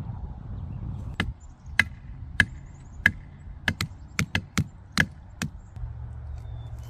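About a dozen sharp strikes on wood as firewood is split into kindling by hand, spaced out at first and coming quicker after the halfway point. Wind rumbles on the microphone for the first second.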